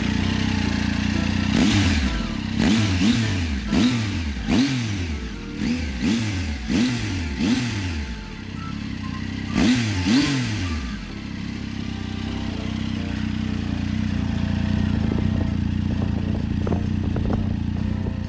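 2018 Triumph Tiger 800 XCX's 800 cc inline-three engine running through an aftermarket Two Brothers Black Carbon exhaust. It idles, then is revved in a quick string of about nine short throttle blips, each rising and falling in pitch, with two more about ten seconds in, before settling back to a steady idle.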